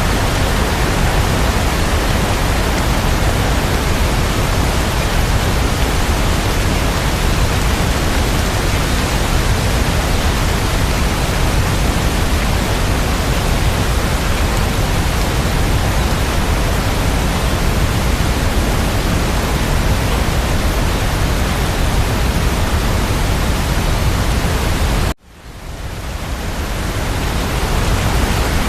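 Steady rain, a dense even hiss with a heavy low rumble. Near the end it cuts out suddenly and swells back up over about three seconds.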